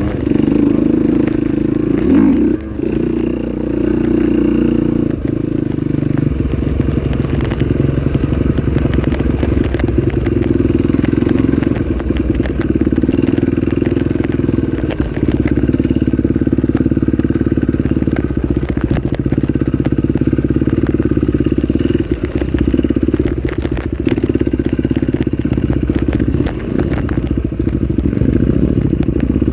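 Trail motorcycle engine running steadily, with frequent knocks and clatter from the bike over rough ground.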